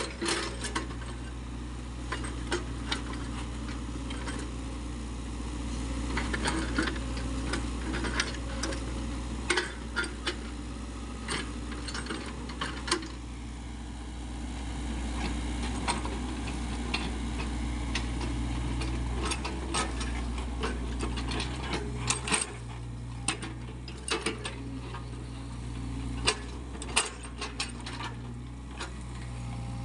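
Sany SY55C mini excavator's diesel engine running steadily as it digs wet mud, working a little harder at times in the second half. Frequent short clanks and knocks come from the bucket and arm.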